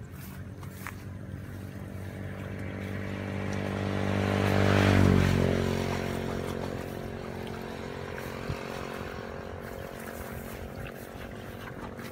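A motor engine passing by: it grows louder to a peak about five seconds in, then fades, its pitch dropping slightly as it goes past.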